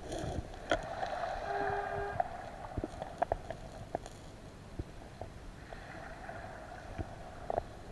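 Muffled underwater sound picked up by a camera in its housing: pebbles click now and then as a hand sifts the seabed. A short steady beep from a Minelab Excalibur II underwater metal detector, signalling a target, sounds about a second and a half in.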